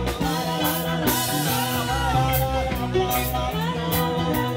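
Live band playing a rock song with a ska feel: drum kit and guitar, with some singing.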